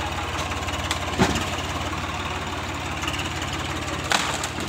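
Swaraj 855 tractor's three-cylinder diesel engine running at low speed with a steady, even beat while pulling a loaded straw trolley. Two sharp knocks cut in, one about a second in and one near the end.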